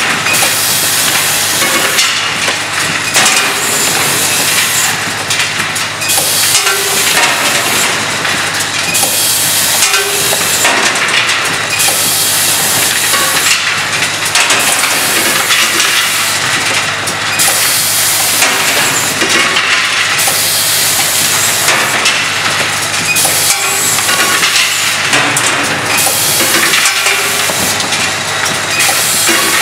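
Automatic cap-and-insert assembly machine running: a steady low hum under a continuous hiss that cuts out briefly now and then, with light clatter of parts and actuators.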